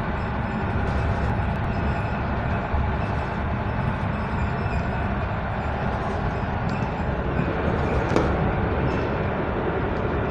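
Steady running noise of an EN57AL electric multiple unit in motion, heard from inside the carriage: a continuous low rumble of wheels on rails, with a few light knocks, the clearest about eight seconds in.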